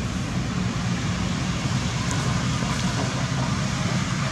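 Steady outdoor background noise: an even low rumble with a hiss over it, no distinct events.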